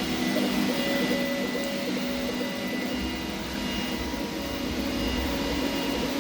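3D printer printing: its stepper motors give short pitched tones that keep stopping and changing pitch as the print head moves, over a steady hum of fans.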